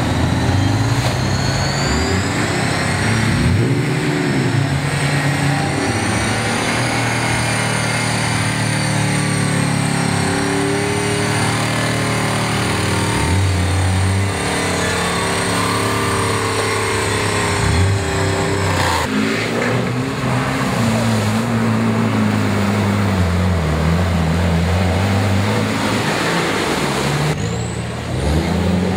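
Off-road 4x4 engines revving hard as the vehicles push through a deep, muddy water hole. The engine note rises and falls again and again as the throttle is worked, and changes abruptly twice.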